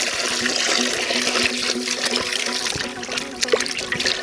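Water being poured steadily into a cooking pot of masala-coated rabbit pieces.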